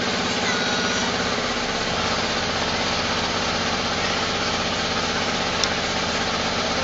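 An engine running steadily at idle, with an even rhythmic throb, and a single sharp click about five and a half seconds in.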